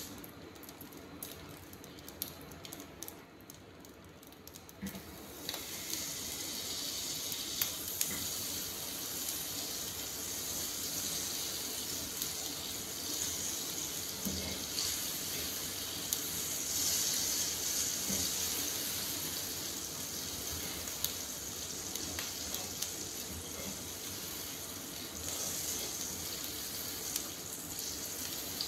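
Butter melting and sizzling in a frying pan over a gas flame: a steady hiss that sets in about five seconds in, with now and then a click of the spatula against the pan.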